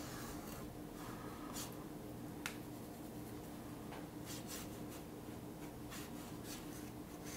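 Round paintbrush stroking a light watercolour wash onto watercolour paper: faint, scattered scratchy brush strokes over a low steady hum.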